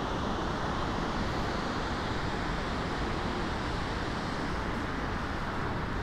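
Steady rushing outdoor ambience of a mountain valley, an even noise with no distinct events.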